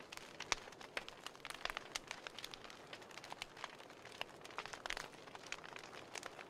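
Burning wood logs crackling: irregular sharp pops and snaps over a soft hiss, with one louder pop about half a second in.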